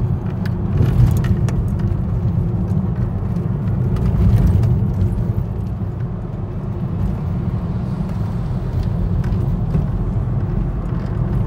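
Steady low rumble of a car's engine and tyres heard from inside the cabin while driving, with occasional faint clicks.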